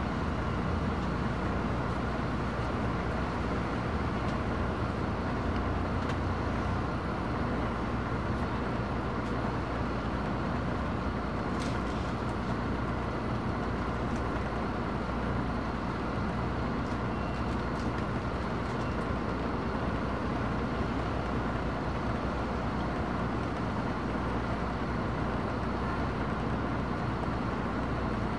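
Steady engine drone and road noise inside a bus cabin, with a few faint clicks and rattles.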